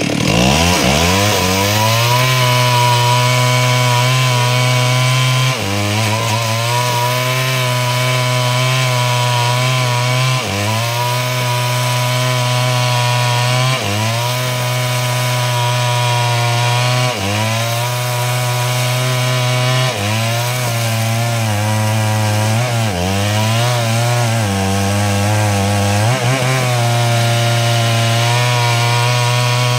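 Two-stroke Stihl chainsaw revving up and then running flat out under load, cutting lengthwise through a log to make planks. Its pitch sags briefly every few seconds as the chain bites deeper and then picks back up.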